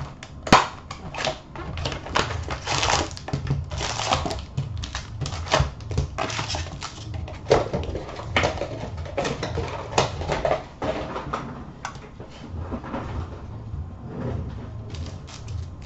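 A sealed hockey-card hobby box being opened and its foil card packs handled and stacked: an irregular run of crinkling and rustling with light taps and clicks.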